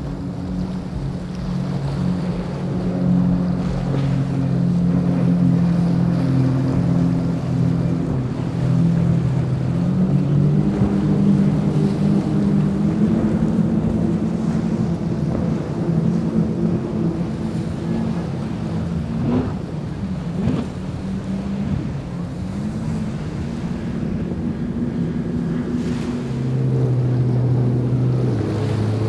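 A speedboat's bank of outboard motors drones at high speed over a wash of water and spray. The engine pitch rises slightly about a third of the way through. Near the end a lower, deeper engine hum takes over.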